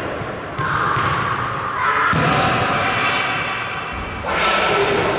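Kicks and punches smacking into focus mitts, three sharp strikes each with a long echo of a large gym hall.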